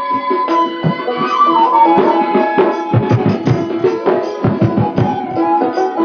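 Instrumental interlude of Bengali folk music: hand drums beat a quick rhythm under a held melody line, the drumming growing denser after the first second or two.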